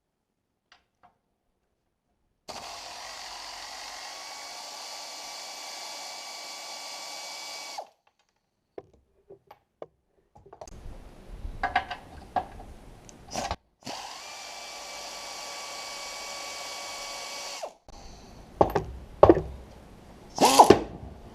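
Electric drill running steadily with a whine twice, for about five seconds and then about four seconds. Clicks and clinks of metal parts being handled come between the runs and after them.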